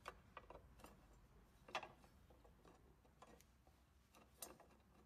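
Faint, scattered metallic clicks of an Allen key seating in and turning a bolt on the ergometer's side plate, about six in all, the loudest a little under two seconds in.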